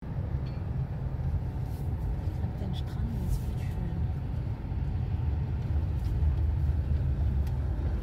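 Camper van driving, heard from inside the cab: a steady low rumble of engine and tyres.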